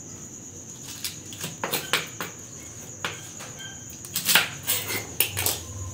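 Knife cutting bok choy on a round wooden chopping board: a string of irregular sharp knocks and taps, with a steady high-pitched whine throughout.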